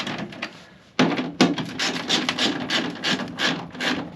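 A run of short scraping and rubbing noises that starts sharply about a second in.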